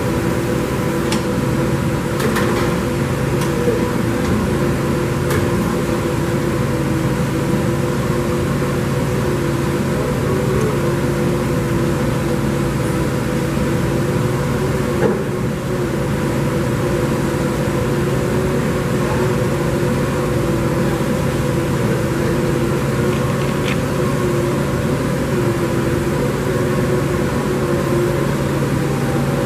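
Motch twin-spindle CNC vertical turret lathe running under power: a steady mechanical hum with several held tones, and a few faint clicks.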